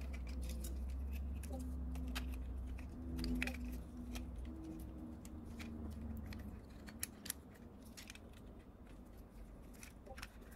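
Small clicks and taps of plastic and sheet-metal parts being handled and fitted together, as a plastic filament-sensor piece is slid into a 3D-printer module's metal housing. A low hum sits underneath for the first half.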